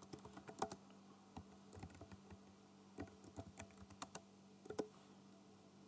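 Computer keyboard being typed on: faint, irregular key clicks entering a terminal command, over a low steady hum.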